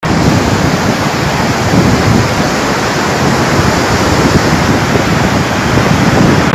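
Floodwater rushing loudly and steadily, with a fluctuating low rumble underneath.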